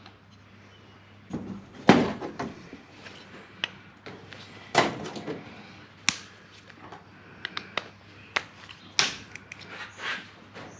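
Irregular clicks and knocks of small metal parts and tools being handled while a drive-by-wire throttle body's motor and gears are taken apart, the loudest knock about two seconds in.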